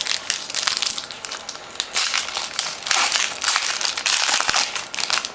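Foil wrapper of a 2013 Panini Rookies & Stars football card pack being torn open and crinkled by hand, an irregular crackling.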